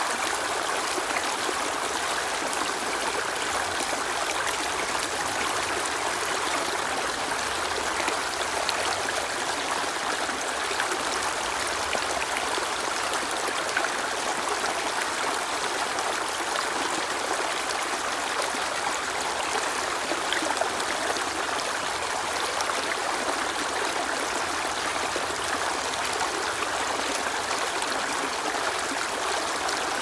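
Small rocky stream cascading over boulders, a steady rushing of water with no let-up.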